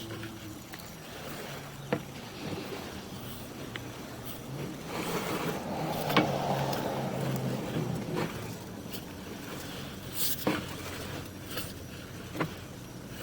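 Sewer inspection camera's push cable being fed through an outside cleanout: scattered sharp clicks and knocks over a steady low hum, with a broad swell of noise like a passing car about five to eight seconds in.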